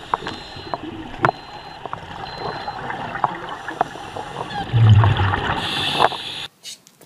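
Underwater sound of a scuba diver: the steady hiss and gurgle of breathing through a regulator, scattered sharp clicks, and a loud low rumble of exhaled bubbles about five seconds in. The sound cuts off near the end.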